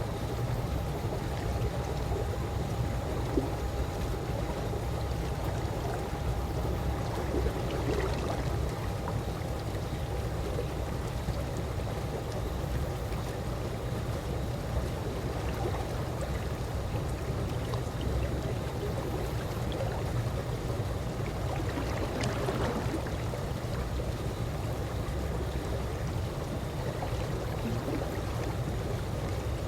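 Calm swimming-pool water moving steadily, with a low rumble underneath and a faint steady hum, and a couple of soft water sounds standing out briefly.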